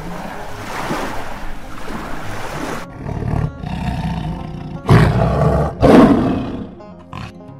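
Lion growling, then roaring twice about a second apart, the two roars the loudest part. A steady rushing noise fills the first few seconds before it.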